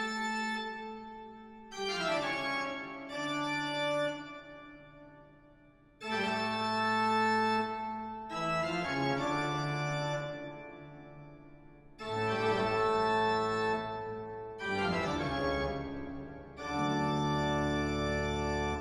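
Background music: slow, sustained organ-like keyboard chords, a new chord struck every two seconds or so and left to fade.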